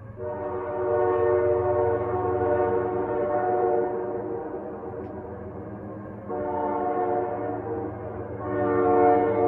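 A Canadian National train's locomotive air horn sounds a chord in three blasts as the train approaches: a long first blast, then a second starting about six seconds in and a third about eight and a half seconds in, over a steady low rumble.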